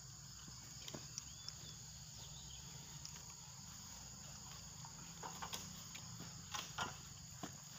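Steady high-pitched insect buzzing, with a few faint knocks and rustles scattered through it, the loudest about seven seconds in.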